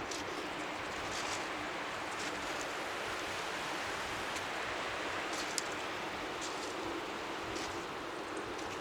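Strong sea wind blowing as a steady hiss, with small waves lapping faintly on the shore and scattered brief crackles.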